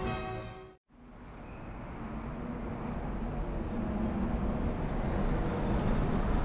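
Background music ending within the first second, a brief dropout, then city street traffic noise fading in and growing louder: a steady rumble of passing cars and buses on a busy street.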